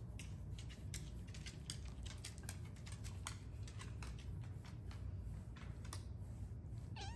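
Fingers scratching through a Bengal kitten's fur, heard as irregular crackling clicks over a low rumble, with a short meow right at the end.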